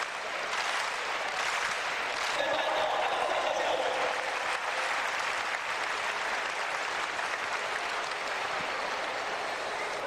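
Large stadium crowd applauding steadily.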